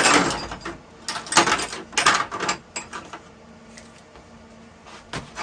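Tools and parts being handled: three short scraping bursts in the first two and a half seconds, then two sharp clicks near the end. The hammer drill is not running.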